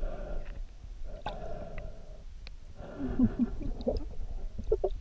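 Muffled underwater sounds heard through a submerged camera housing: water movement and gurgling in stretches of about a second, with a few short low squeaky sounds near the end.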